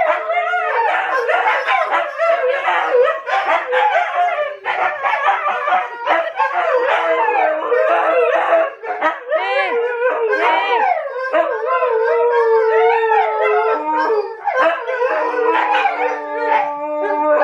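Several excited Siberian huskies howling and yipping together in overlapping calls that rise and fall, with one long held howl near the end.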